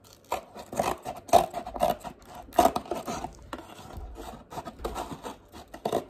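Scissors cutting through a painted cardboard milk or juice carton, with repeated snips about two a second.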